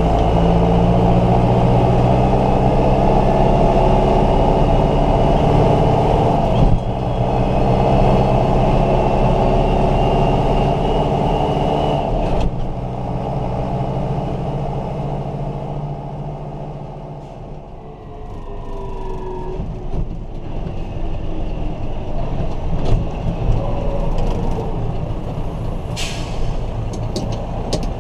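John Deere 6200 tractor's diesel engine running steadily under way, heard from inside the cab. About halfway through its note falls away as the tractor slows, then builds again. A sharp click comes near the end.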